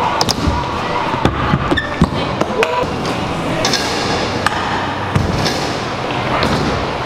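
Stunt scooter's wheels and metal deck knocking and clattering on a wooden skate ramp: a string of irregular sharp knocks over a steady background din.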